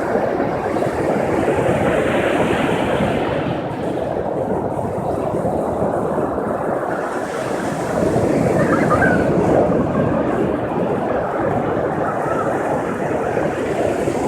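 Ocean surf washing onto the beach in a steady rush that swells a little about two-thirds of the way through, with wind on the microphone.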